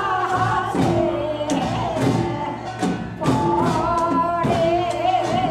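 Women's voices singing a Korean folk song through microphones and a PA system, with sharp percussive strikes beating through the song.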